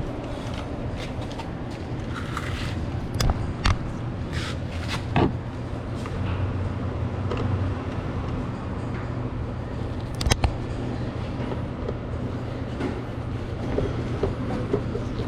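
Screwdriver and fasteners clicking and knocking against a car's plastic door trim during door-panel screw removal, a few sharp clicks spread through, over a steady low hum.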